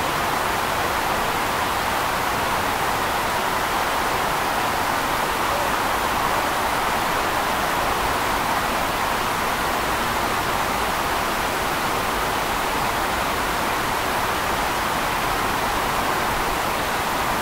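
Steady, even rushing hiss that is strongest in the middle range, with no separate sounds in it.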